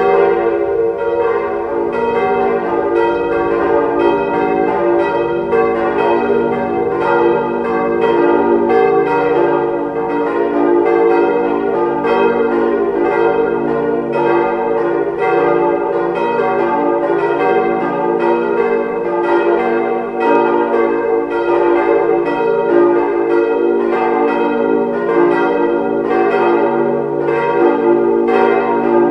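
Four cast-iron church bells cast by Weule in 1949, struck notes d', f', g' and b', swinging in full peal, their strokes following one another in a continuous overlapping stream. Their strike notes sit out of line with one another, a badly distorted strike-tone line in the uploader's judgement, on bells the uploader expects to fail before long.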